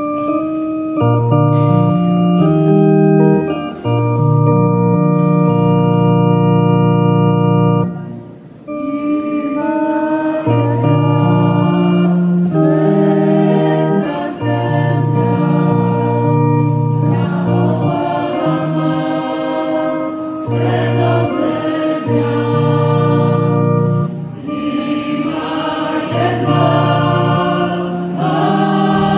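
Organ playing a hymn introduction in steady held chords for about eight seconds, then a church choir joins in, singing the hymn with the organ accompanying.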